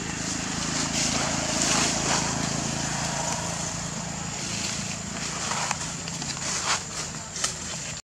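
A steady low motor hum that eases off about halfway through, with a thin high whine and a few light crackles over it.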